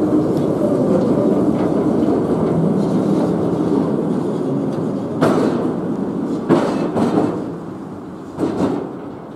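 1951 Düsseldorf tramcar running past on street track and away, a dense rumble of wheels and running gear that is loudest at first and slowly fades. From about halfway on, several sharp clunks from the wheels on the track stand out.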